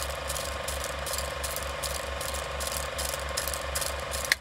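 Vintage film projector sound effect: a steady mechanical whirr with a rapid, regular clatter and scattered film crackle. It cuts off near the end.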